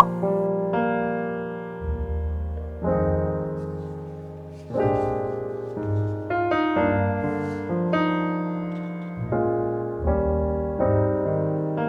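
Background music: soft piano chords struck every second or two and left to fade, over a low bass.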